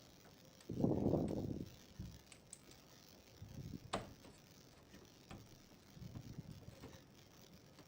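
Small clicks and knocks of parts being handled and seated inside a desktop computer, with a short rustle about a second in and one sharper click about four seconds in.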